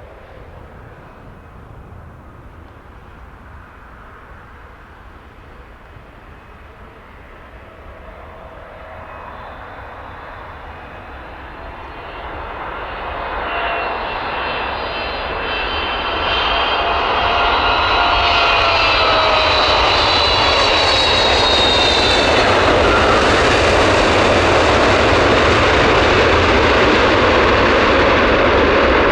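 Large jet airliner's engines building from a distant rumble into a loud roar over about ten seconds, with whining fan tones drifting through it, then a steady loud roar through the last ten seconds.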